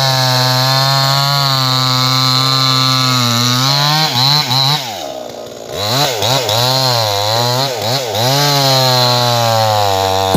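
Two-stroke chainsaw running at high revs, steady at first and then swinging up and down in pitch several times as it cuts through a tree stump, with a brief drop in revs about five seconds in.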